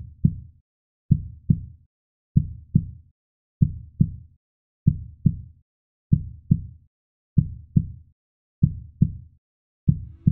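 Heartbeat sound effect: a slow, deep double thump (lub-dub) repeating evenly about every 1.25 seconds, with silence between the beats.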